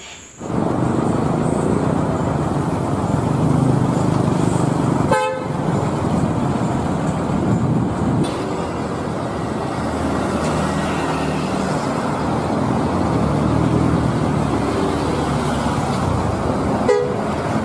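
Coach buses driving by on a busy street: steady engine and traffic noise, with a short horn toot about five seconds in and another near the end.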